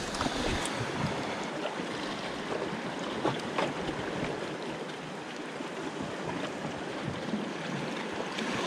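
Sea surf washing over shoreline rocks: a steady hiss of waves, with a few faint clicks.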